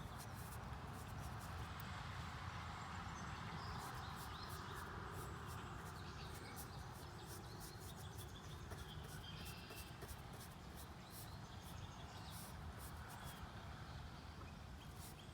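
Outdoor ambience: faint bird chirps now and then over a steady hiss and low rumble, with scattered light ticks.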